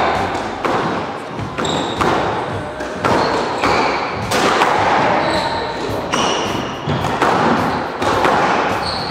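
Squash rally: the ball cracks off the rackets and smacks into the court walls every second or so, echoing in the enclosed court, with short high squeaks from the players' shoes on the wooden floor between the hits.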